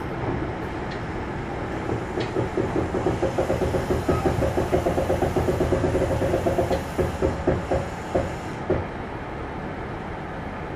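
Kintetsu 1021-series electric train (Hitachi GTO inverter) running, heard from on board: a steady rolling rumble with a fast, even clatter that sets in about two seconds in and dies away about eight and a half seconds in.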